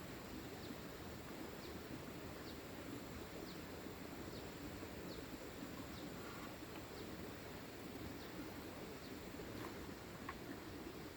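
Outdoor ambience: a faint, short, high chirp, falling slightly in pitch, repeats about once a second over a steady background hiss.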